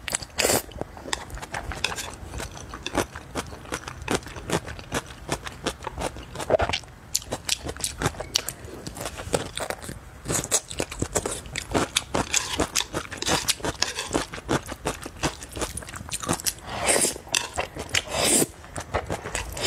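Close-up eating sounds: noodles slurped into the mouth in several long sucking pulls, with wet chewing, lip smacks and many small mouth clicks between them.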